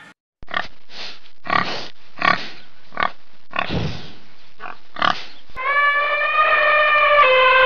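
Domestic pig grunting and squealing in a series of about eight short calls. A long, steady horn-like tone starts near the end.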